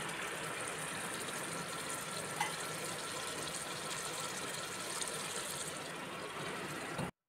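Crab bhuna simmering in a steel pot, its thick sauce bubbling with a steady sizzle. The sound stops suddenly near the end.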